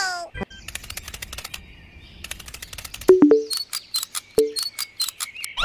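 Cartoon sound effects: runs of rapid sharp clicks, about ten a second, broken by a short two-note bloop about three seconds in and another a little over a second later.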